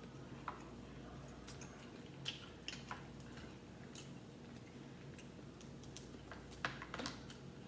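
Crab leg shells cracking and clicking as they are pulled apart by hand: scattered sharp clicks, the loudest a cluster near the end, over a faint steady low hum.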